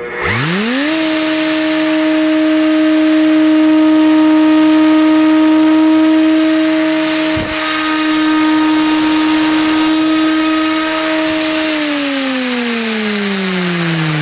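3 hp variable-speed router spinning a Vibe 50 helicopter tail rotor with its blades: it spins up to speed within the first second with a rising whine, runs steadily at about 9400 RPM while the blade pitch is moved off zero and back, with one short click around the middle. Near the end it is switched off and winds down, its pitch falling.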